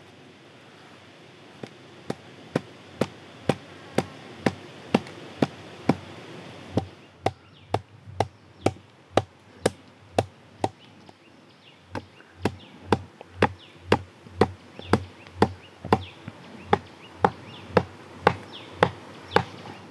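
Wooden stakes being driven into the ground with a wooden mallet: regular hollow knocks of wood on wood, about two a second, with a short pause about eleven seconds in before the pounding resumes.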